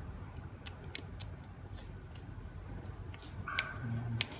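Light, sharp clicks and snips of small parts being handled: a quick run of four or five in the first second and a half, then two more near the end.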